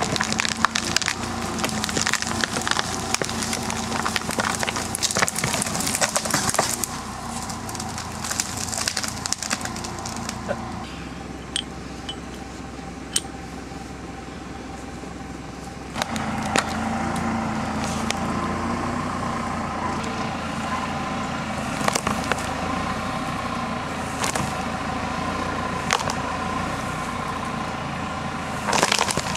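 Tree coming down under a tractor's pull: wood cracking and splintering and branches crashing for the first several seconds, over the steady run of a tractor engine. About halfway through the engine comes up louder, with single sharp cracks every couple of seconds.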